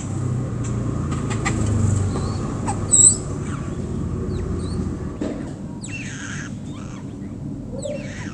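Small garden birds chirping and calling in short bursts, with a sharp high chirp about three seconds in and quick downward-sweeping calls later on. A low rumble runs underneath for the first half.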